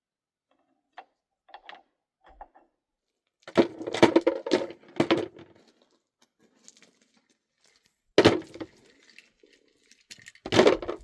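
Irregular knocking and clattering of hard objects, in three loud bursts about three and a half, eight and ten and a half seconds in, with a few light clicks before them.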